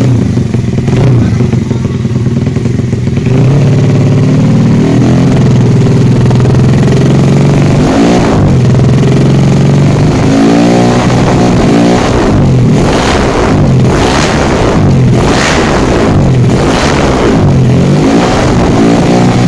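Yamaha Vega 115 cc motorbike engine running through an RCB competition exhaust, held at a steady speed for about eight seconds, then blipped over and over, the revs climbing and dropping about once a second.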